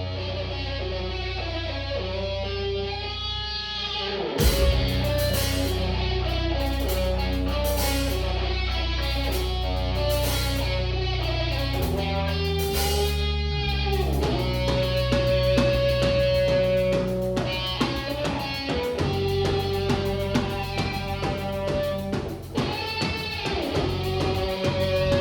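Live progressive metal band playing an instrumental passage, with electric guitars over bass. About four seconds in, the full band comes in louder with crashing hits.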